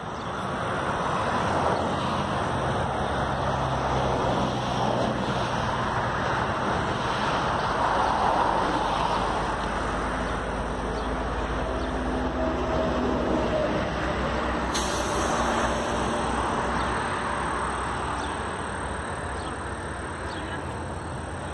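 Highway traffic passing: a steady rumble of car and truck engines and tyres that swells and eases gently.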